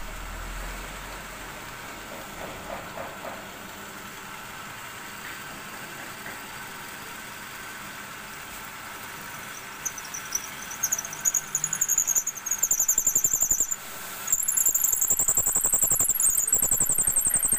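Wood lathe running with a steady hum while a wooden stick is held against the spinning wooden workpiece. From about ten seconds in, the wood-on-wood rubbing gives a high, wavering squeal, which turns loud and almost continuous a few seconds later.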